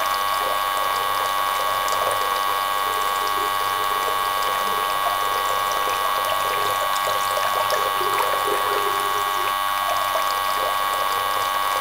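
Tiny battery-powered submersible water pump running with a steady whine, with water trickling out of its hose into a small trough.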